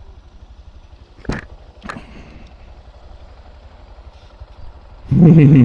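Honda Monkey's single-cylinder engine idling with a low, fast, even pulsing. There are two short clicks in the first two seconds, and near the end a person's voice comes in loud.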